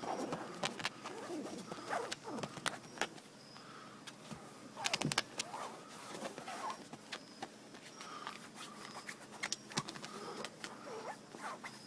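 Irregular taps and scratches of a cat's paws and claws on a Jeep soft top. A small bird chirps repeatedly in the background, about once a second.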